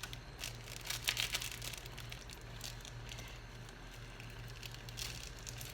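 Faint scattered clicks and rustling of kitchen handling, thickest in the first second and a half, over a steady low hum.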